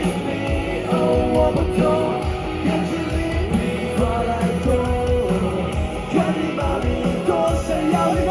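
Live band playing an upbeat rock-style song with guitar and a steady beat, a voice singing over it.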